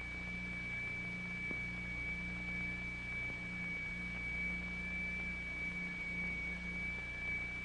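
Two electronic test tones close in frequency sound together, so the note throbs in a beat: a low tone swells and drops away roughly once a second under a steady high tone.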